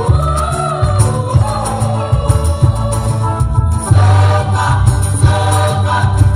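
Mixed high-school choir singing in parts over a loud, low bass accompaniment; a new, fuller phrase begins about four seconds in.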